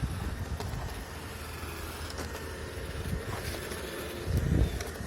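iRobot Roomba E5 robot vacuum running with a steady hum, over a low rumble, with a louder low bump about four and a half seconds in.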